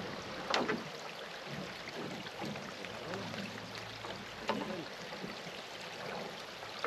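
Quiet riverside outdoor ambience with a few short knocks: one about half a second in, one about four and a half seconds in, and a louder one at the very end.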